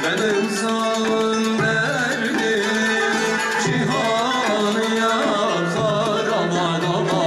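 Live Urfa folk music: men singing a türkü into microphones over violin, bağlama, kanun and frame drums, playing without a break.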